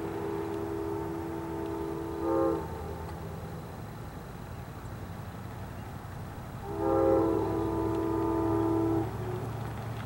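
Amtrak GE P42DC locomotive sounding its multi-chime air horn for a level crossing as it approaches: one long blast that is already sounding at the start and ends about two and a half seconds in, then a second long blast of about two seconds near the end. A low rumble from the approaching train runs underneath.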